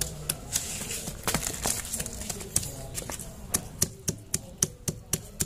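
Wooden pestle pounding green nhót (oleaster) fruit with coarse salt in a plastic bowl: a run of sharp, irregular knocks, about three a second.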